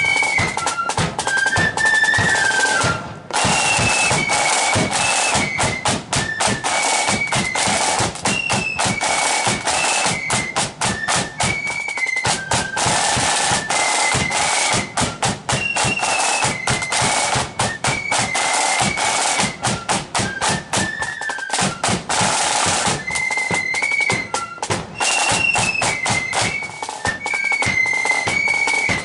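Marching flute band playing: a high tune on many flutes over rattling side drums and a steady bass drum beat, with a brief break about three seconds in.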